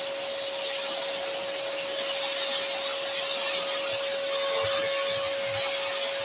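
Axminster Trade AT406SS scroll saw running with a steady hum as its modified geometry blade cuts through a wooden panel along a tree-shaped outline.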